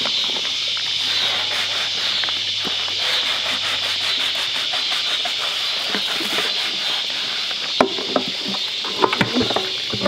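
A sponge scrubbing the perforated stainless steel drum of a washing machine, over a steady high hiss, with a few sharp knocks against the drum near the end.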